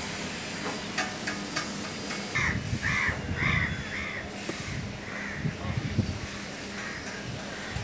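A crow cawing four times in quick succession, about two caws a second, a couple of seconds in, with a few fainter calls after. Scattered short knocks and a steady low hum lie beneath.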